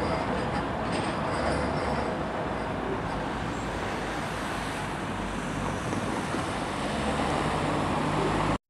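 Manchester Metrolink M5000 tram pulling away and running off into the distance over steady street-traffic noise, with a faint high wheel squeal fading in the first second or so. A car gets closer near the end, then the sound cuts off abruptly.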